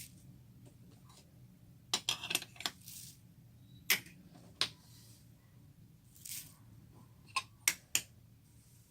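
Slime being worked in a container: a series of sharp clicks and light clinks, a quick cluster about two seconds in and single ones scattered after, with a couple of short soft swishes between.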